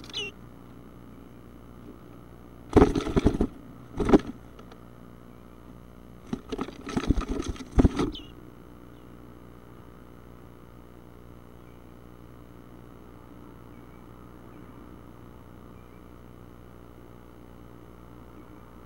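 Bluebird nestling scrabbling and flapping in bursts inside the wooden nest box as it climbs to the entrance hole and fledges. There is a burst about three seconds in, a short knock, then a longer bout of scratching and wing beats that stops about eight seconds in.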